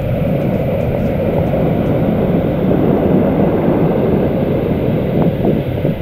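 Small forest waterfall: water falling and rushing, a steady, dense noise heavy in the low end.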